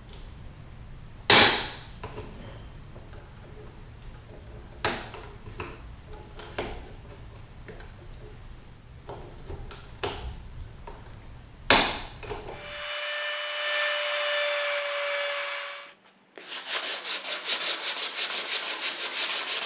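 Side cutters snipping the plastic tabs off a KTM throttle tube: a few sharp snaps several seconds apart. After a cut there is a steady rubbing for a few seconds, then hand sanding with rapid back-and-forth strokes, about four a second, as the throttle tube and grip are smoothed so the grip will slide on.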